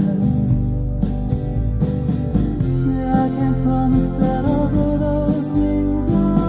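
Guitar-based music with a singing voice and a steady bass line, played back through a vintage Technics SU-Z11 integrated amplifier as a sound test.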